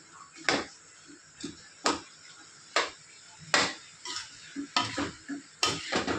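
Steel slotted spoon stirring chickpeas in a steel kadai, knocking and scraping against the pan several times over a faint sizzle, as the chickpeas are mixed into the masala.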